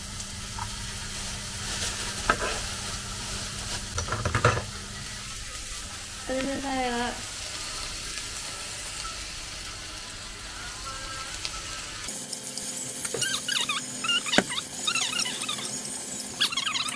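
Chicken pieces sizzling in a frying pan, with a couple of sharp knocks early on. From about twelve seconds in, chopsticks tap and scrape the pan as the pieces are stirred, over louder crackling.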